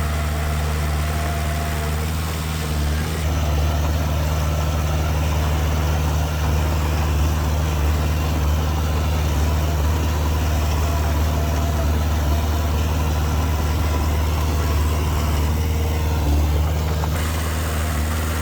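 Diesel engine of heavy earthmoving machinery running steadily with a deep, even drone, growing slightly louder about three seconds in.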